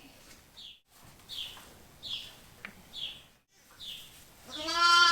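A sheep bleats once, loudly, near the end, over a run of short high chirps that repeat about every 0.7 s throughout.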